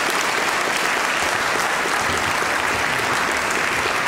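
A large audience applauding steadily, a dense continuous patter of many hands clapping.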